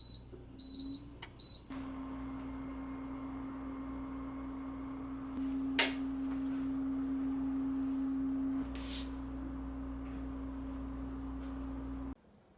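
A few short high electronic beeps, then the steady single-pitched hum of an electric appliance running, louder for a few seconds midway and stopping abruptly near the end.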